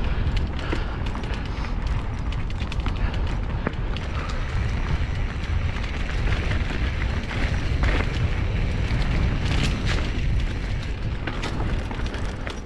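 Mountain bike being ridden over a rough dirt trail, heard from a camera on the rider: a steady low rumble of wind buffeting and tyre noise, with frequent sharp rattles and clicks from the bike.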